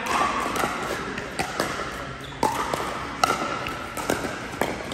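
Pickleball play: paddles striking the hollow plastic ball and the ball bouncing on the court, giving irregular sharp pops about two a second that echo in a large indoor hall, from several games at once.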